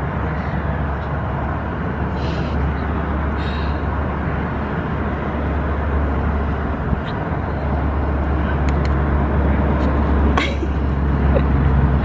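Steady low rumble of vehicle traffic, with a few faint short high-pitched sounds.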